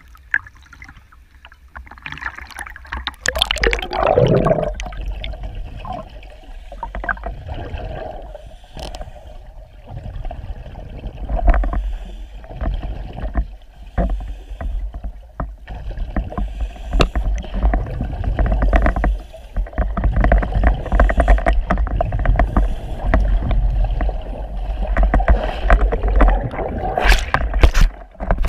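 River water moving around an underwater camera: a steady low rumble with many knocks and clicks from the current. Near the end comes a dense crackling burst of bubbles from a diver's exhaled scuba breath.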